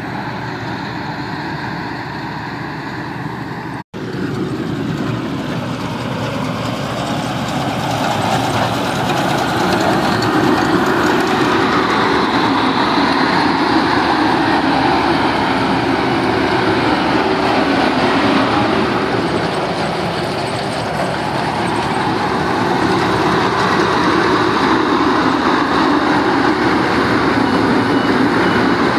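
Fieldking tracked combine harvester running steadily while harvesting rice: engine and machinery noise, cut off for an instant about four seconds in, then louder and closer.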